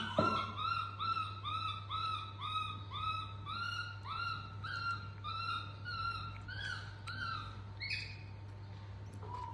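Baby macaque giving a fast run of short, high chirping calls, about three a second, while sucking at a milk bottle; the calls stop about three quarters of the way through. A low steady hum lies underneath.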